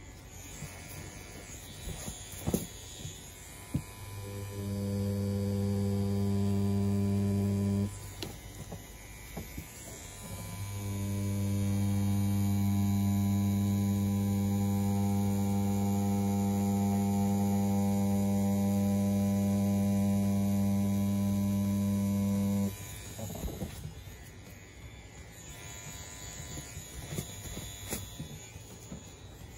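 CNC P6 rotary tattoo pen buzzing steadily at 7.5 volts with a 3.6 mm stroke, driving a round shader needle cartridge while lining. It runs for about four seconds, stops, then runs again for about twelve seconds, swelling up each time it starts. Small clicks and handling noises fill the gaps.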